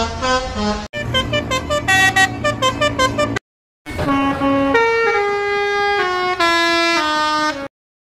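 Telolet basuri bus horns, multi-note musical air horns, playing tunes. Quick runs of short notes are broken about a second in and again after about three and a half seconds by abrupt cuts. After a brief silence comes a slower melody of held notes stepping mostly downward, which stops sharply near the end.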